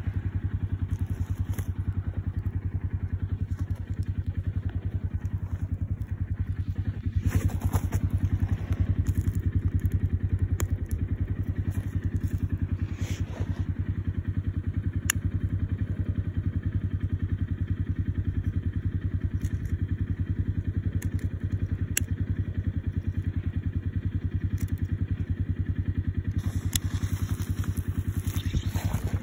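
An engine running steadily at idle, a low rapid even pulsing, with a few faint clicks.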